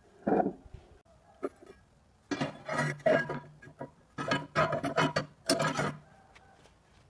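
Steel flat bar scraping and clanking on the metal table of a drill press as it is slid into position, in several bursts of metal-on-metal rubbing, the longest in the second half.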